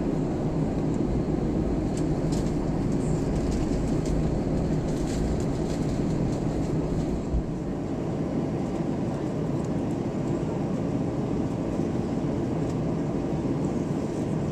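Steady cabin noise of an Airbus A320-family airliner taxiing, heard inside the cabin: the jet engines running at idle with a low, even hum and a few faint ticks and rattles.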